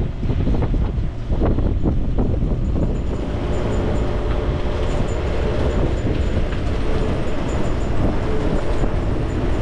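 Strong wind buffeting the microphone on a sailboat's open deck, a dense, steady rumble, with a faint steady hum coming in about three seconds in.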